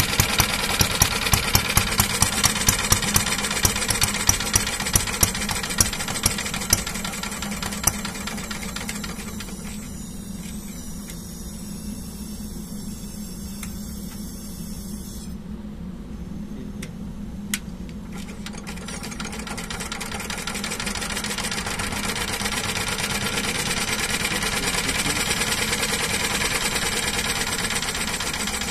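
Single-cylinder spark-ignition test-bed engine running on propane, with sharp irregular clicks about twice a second at first. About nine seconds in it turns quieter, then it gradually picks up and runs louder again in the last several seconds.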